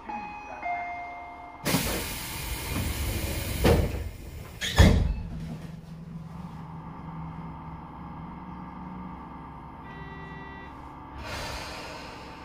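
A Tobu 10030-series electric train's doors closing: a short chime, then a loud hiss of air and two thuds as the doors slide shut. About ten seconds in comes a short beep, then another brief hiss of air as the train readies to depart.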